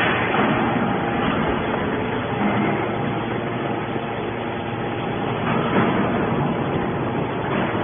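Hydraulic can baler running: a steady mechanical drone from its motor and pump with a few faint steady tones in it.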